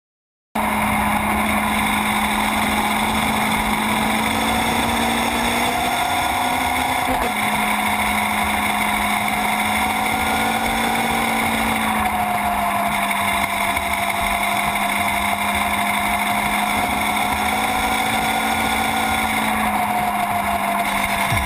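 Sportbike engine running at fairly steady revs, its pitch rising and falling gently, over wind and road noise; it cuts in suddenly about half a second in.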